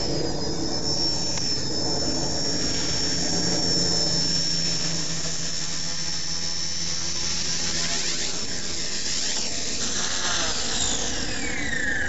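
Blade mCP X micro RC helicopter's electric motors and rotors whining at a steady high pitch in flight. Near the end the whine drops sharply in pitch as the rotors slow.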